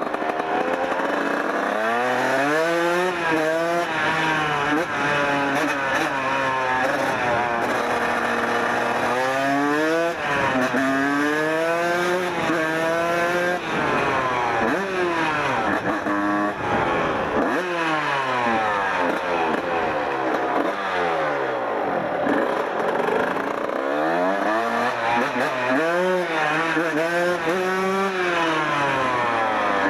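1994 Kawasaki KX 125's single-cylinder two-stroke engine being ridden, its revs climbing and dropping again and again as the throttle opens and closes and the gears change.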